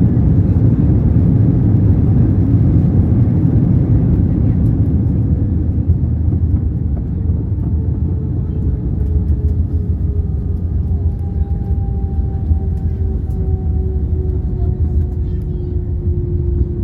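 Airbus A320 cabin noise on the landing rollout: a loud, steady low rumble of the engines and wheels on the runway, easing slightly as the jet slows, with a faint whine that glides slowly down in pitch through the second half.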